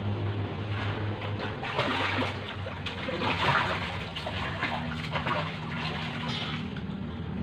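Water splashing and trickling in uneven spurts, over a steady low hum.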